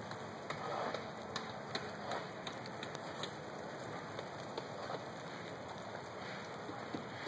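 Steady hiss with many scattered, irregular light ticks and clicks, like rain: meltwater drips and small pieces of ice falling from ice-coated trees.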